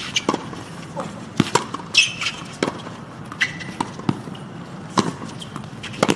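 Tennis rally on a hard court: sharp racket-and-ball hits and bounces about once a second. A brief sneaker squeak comes about two seconds in.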